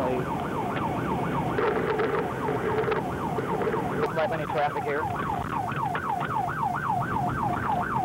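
Police car siren on its rapid yelp, sweeping up and down about three times a second, over engine and road noise.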